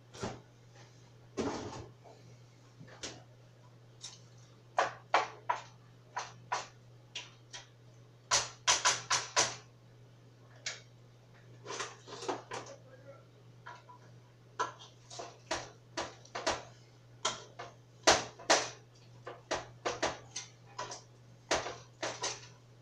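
Kitchen clatter: items and containers knocked, set down and handled on a counter and in a cupboard, with irregular knocks and clicks, busiest in two flurries, over a steady low hum.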